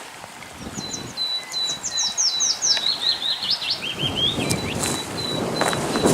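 A songbird sings one phrase, a run of quick falling notes running into a lower trill and a short ending flourish. From about four seconds in come the rustle and steps of people walking, loudest near the end.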